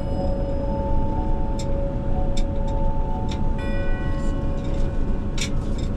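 Wind buffeting the microphone, a steady rumbling rush with a few short clicks, under soft background music of two held tones. A bell-like chime comes in a little past halfway.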